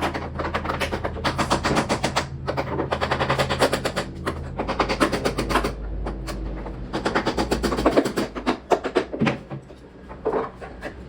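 Runs of rapid, sharp mechanical knocks, many a second, in bursts of a second or two with short breaks, over a low steady hum: a power tool at work on wood.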